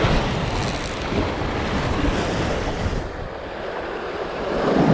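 Sea waves surging and breaking against shore rocks, swelling again near the end, with wind buffeting the microphone.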